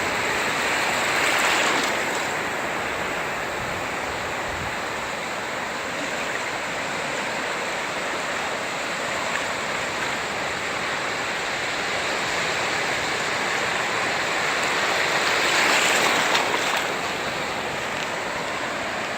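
Small ocean waves washing in over shallow water: a steady hiss of surf that swells once about a second and a half in and again near the end.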